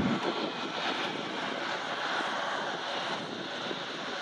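Airbus A320neo's Pratt & Whitney PW1127G geared turbofan engines running at low taxi thrust as the airliner rolls onto the runway. A steady, even jet noise that does not rise in pitch.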